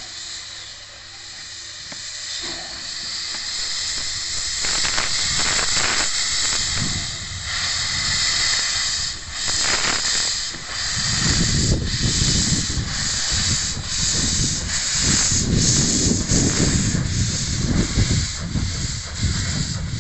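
Small steam tank locomotive hissing loudly as steam blows from its cylinder drain cocks, then moving off, with steady chuffing starting about halfway through under the hiss.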